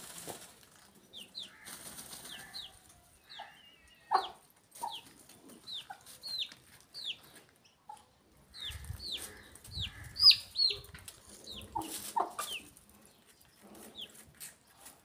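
Chicks peeping in short, high, falling notes, about one or two a second, loudest about ten seconds in, among chickens pecking feed off a plastic bag with rustling and tapping.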